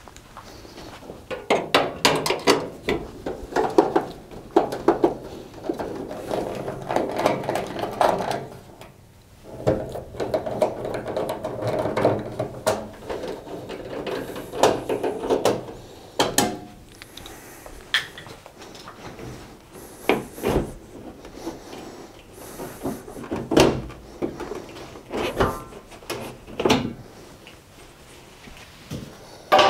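Screws being undone from a tumble dryer's sheet-metal side panel with a hand screwdriver: scattered clicks, scrapes and rattles of screwdriver, screws and metal, with sharper knocks of the panel being handled.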